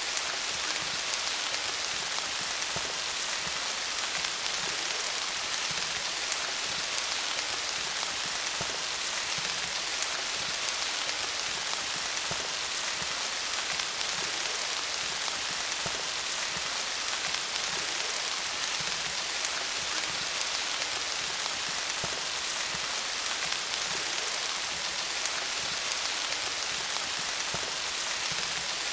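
Steady rain falling on leaves: a dense, even patter of many small drops.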